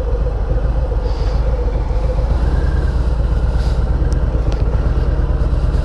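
Harley-Davidson Softail Slim's Milwaukee-Eight V-twin engine running at low speed while the motorcycle rolls slowly through a turn, a steady low engine note with no revving.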